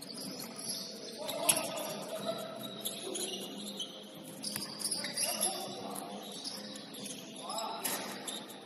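Basketball game sounds on an indoor court: scattered high sneaker squeaks on the floor, distant players' voices, and a sharp knock about one and a half seconds in.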